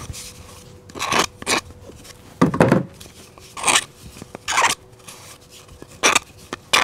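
A small hand tool scraping and cutting at the end of a PVC pipe in about seven short, uneven strokes.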